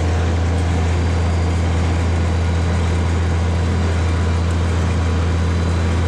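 Tractor engine running at a steady speed, heard close up from the driver's seat: a deep, even drone with no change in pitch.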